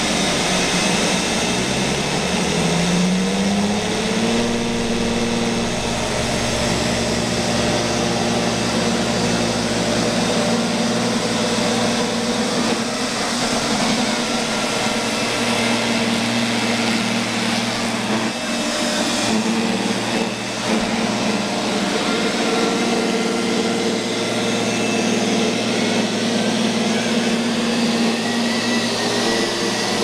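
Neato robotic vacuum cleaner running in spot-clean mode, its suction fan and brush whirring steadily as it drives over a rug. About three seconds in, its hum rises in pitch, then holds steady.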